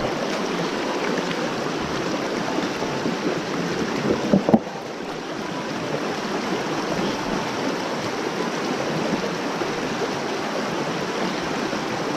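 Shallow mountain stream rushing steadily over rocks, with one brief louder knock about four and a half seconds in.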